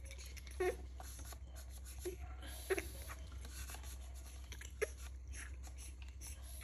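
Baby macaque giving four short, high squeaks spread over a few seconds, over faint wet clicks of lapping and smacking while drinking milk from a bowl.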